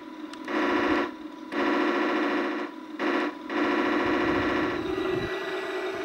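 Electronic sound effects from the Tamiya 1/16 full-option Tiger I's onboard sound unit, played through its small speaker. There are four loud bursts, the second and fourth the longest, then a steadier, slightly quieter drone near the end.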